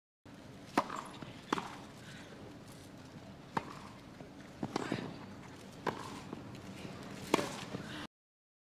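Tennis ball struck back and forth by rackets in a rally, a string of sharp pops about a second apart over a low crowd hush. The sound cuts off suddenly near the end.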